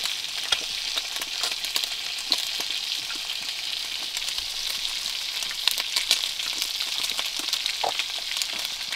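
Fish and bacon frying in a cast-iron pan over a campfire: a steady sizzling hiss with many small scattered pops.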